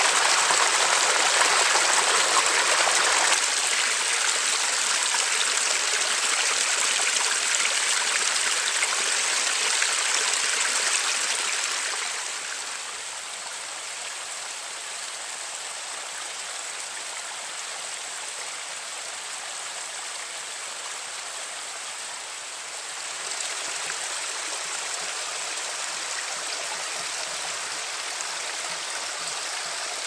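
Small woodland brook splashing over a little cascade: a steady rush of water. It gets quieter about three seconds in and again about twelve seconds in, then comes up a little about twenty-three seconds in.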